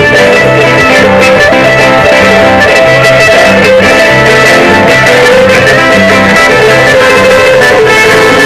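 An amplified Andean string band playing: violins carry the melody over strummed guitars and a repeating bass line, loud and without a break.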